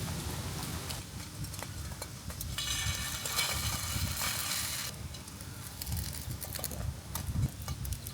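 Cooking sounds: a sizzle that grows into a louder hiss for about two seconds near the middle, over scattered light clicks and clinks.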